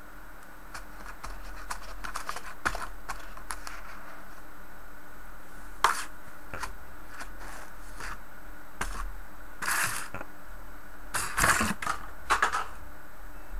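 A cat pawing and pushing a small cardboard box about on a wooden tabletop: scattered light taps and clicks, a sharper knock about six seconds in, and a few short scraping rustles near the end.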